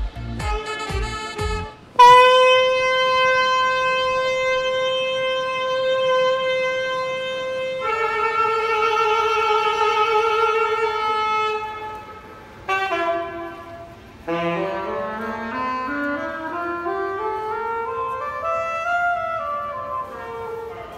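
Saxophone playing: a short riff over a thumping beat, which stops about two seconds in; then one long held note of several seconds, a second, wavering held note, a few short notes, and a slow rising run of notes that tops out and falls back near the end.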